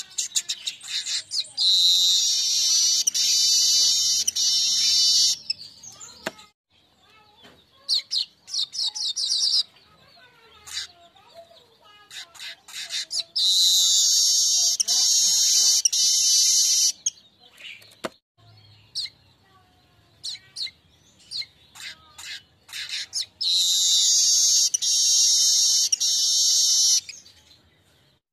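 Streaked weaver (manyar kembang) singing: runs of sharp high chips and ticks that build three times into a long, dense buzzing trill of three to four seconds, with scattered chips in between.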